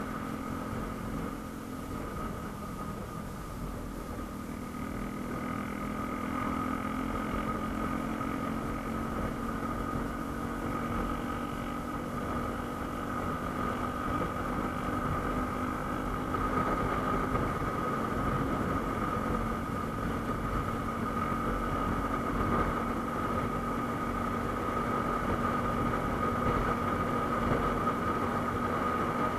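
Yamaha M-Slaz motorcycle's single-cylinder engine running steadily, with a low rumble underneath.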